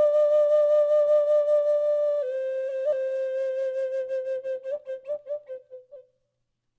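A solo flute playing the closing notes of a slow, reverent melody: a long note, a step down about two seconds in, then a final wavering note that fades out about six seconds in.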